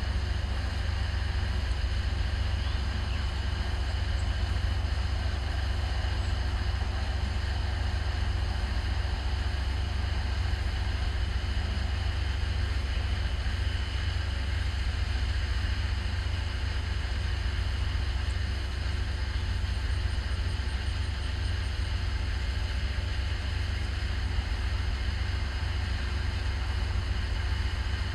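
Towboat's diesel engines running with a steady low rumble as it pushes barges slowly forward.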